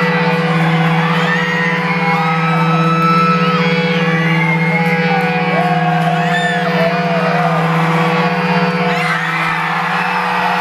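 Loud live rock music holding a steady, sustained low droning note through the hall's PA, with a crowd screaming and whooping over it throughout.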